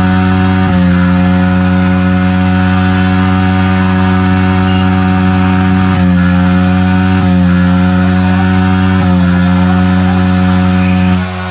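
Yamaha R15M's single-cylinder engine held at steady high revs during a stationary burnout, the rear tyre spinning on the road. The pitch holds almost constant with a few slight dips, and the level drops just before the end.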